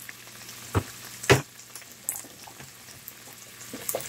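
Ground pork and green beans sizzling in a frying pan while being stirred with a wooden spatula, with two sharp knocks about half a second apart about a second in.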